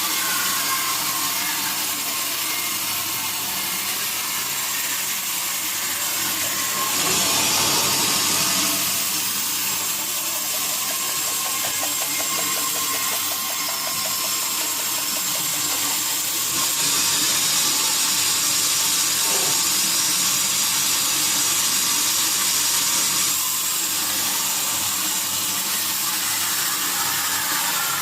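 Sawmill saw running steadily as it works teak wood. It grows louder and hissier for a moment about seven seconds in, and again from about seventeen to twenty-three seconds.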